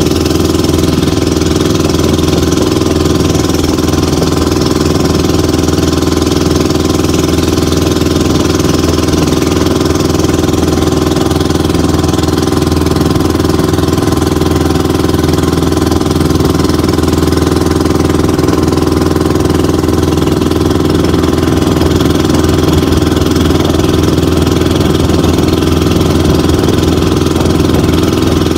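The engine of an outrigger motorboat running steadily under way, at one even pitch without revving.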